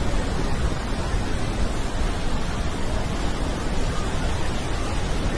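Iguazu Falls: heavy falling water making a steady, loud rushing roar that carries the most weight at the low end.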